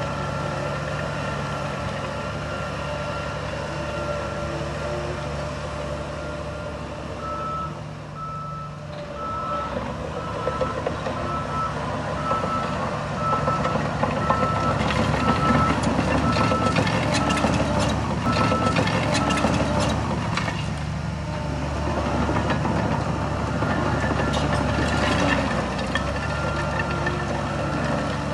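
Reversing alarm of a heavy diesel machine beeping steadily, a little faster than once a second, over a running diesel engine. The beeping stops about two-thirds of the way through, and bursts of knocking and clatter come in the middle and later part.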